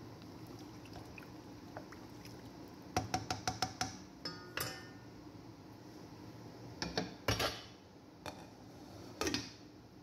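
Cookware clatter: a quick run of light clinks against a pan about three seconds in, then a few ringing knocks and louder clanks, with one last knock near the end.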